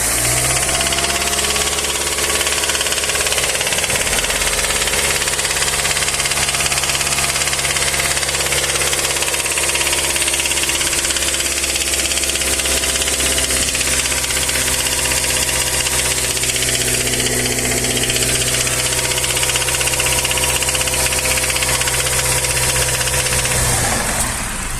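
Mazda SkyActiv-G 2.5 four-cylinder petrol engine running steadily at about 2000 rpm with a rattling knock from worn connecting rod bearings. It cuts off shortly before the end.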